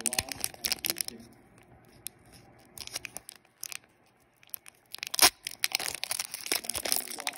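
Foil wrapper of a Pokémon TCG booster pack crinkling and tearing in the hands, a quieter pause in the middle, then one sharp crack a little after five seconds followed by more dense crinkling.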